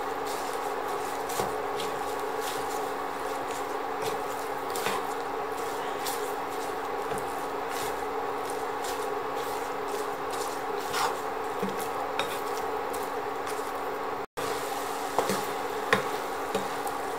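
Wooden spatula stirring pumpkin, egg and basil in a nonstick pan, with a few light knocks of the spatula against the pan over a steady hum.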